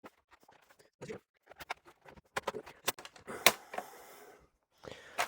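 Scattered plastic clicks and scrapes from a Lenovo IdeaPad 3i laptop's bottom cover being pried off, its clips popping loose. The loudest, sharpest snap comes about three and a half seconds in.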